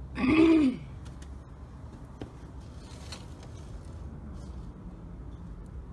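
A person makes a short voiced sound, like a brief hum, near the start. Then come a few faint clicks as wooden chopsticks stir thick honey in a glass jar.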